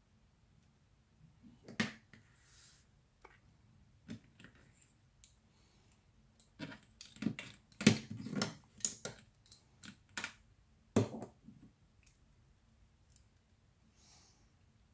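Sharp little clicks and taps of precision tweezers and small metal repair tools against iPhone parts and a hard desk. A few at first, then a quick scattered run in the middle, as tools are handled and set down.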